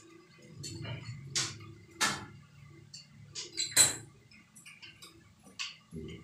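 Scattered sharp clicks and taps of hand tools and metal or plastic fittings being handled and knocked against tile. The loudest come about two seconds in and just before four seconds.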